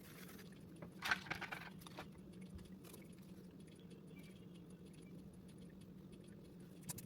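Small metal parts or tools clinking briefly about a second in, a short cluster of light jingling clicks, over a faint steady hum.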